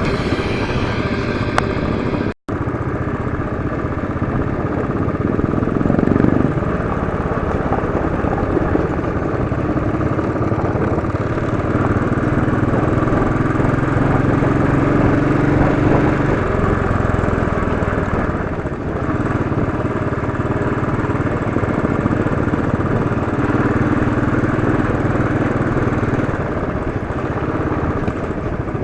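Royal Enfield Classic 500's single-cylinder engine running as the motorcycle is ridden over a potholed dirt road, its note shifting up and down several times with the throttle. All sound drops out for a split second about two seconds in.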